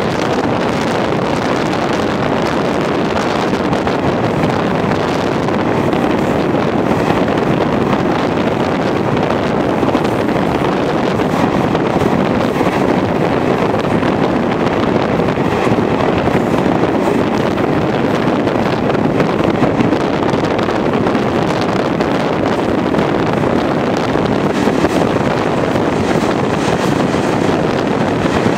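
Steady rush of running noise from a train moving at speed, heard at an open window, with wind buffeting the microphone.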